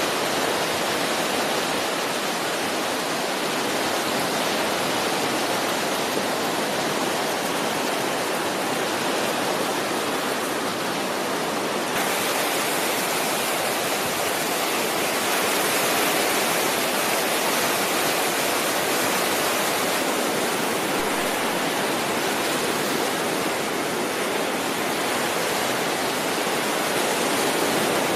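Steady rushing noise of sea surf, an even hiss with no clear breaks between waves, turning a little brighter about twelve seconds in.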